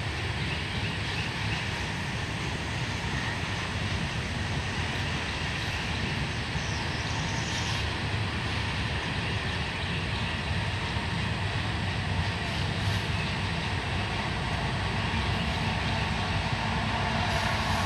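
CSX mixed freight train cars rolling past: a steady rumble and clatter of steel wheels on rail. Near the end a steady engine drone comes in and grows louder as a locomotive approaches.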